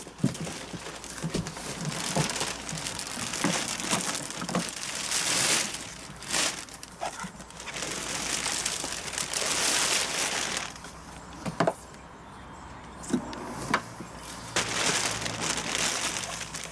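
Packaging rustling and crinkling as parts are unpacked from a box, with scattered sharp knocks and clicks; the handling goes quieter for a few seconds near the end.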